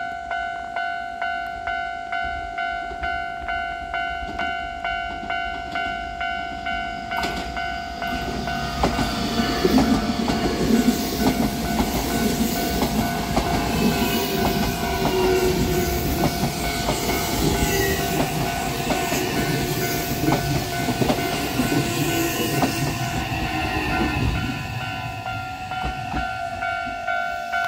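Japanese level-crossing warning bell ringing steadily, with a repeating ding about twice a second. From about eight seconds in, a Nankai electric commuter train runs past over the crossing, wheels clattering on the rails.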